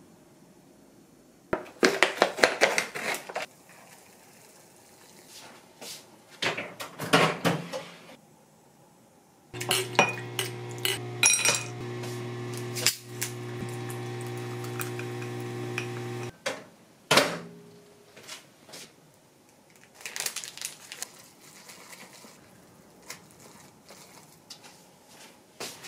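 Dishes and utensils clattering and clinking in short bursts, with a steady electric hum for about seven seconds in the middle, followed by a sharp click. Near the end, wooden chopsticks stir instant noodles in a paper cup.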